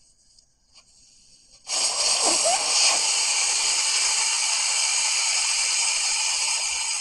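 Air escaping from an off-road tire's Schrader valve with the core removed, the tire being fully aired down from 35 psi: after a couple of faint clicks, a loud hiss starts suddenly about two seconds in and holds steady.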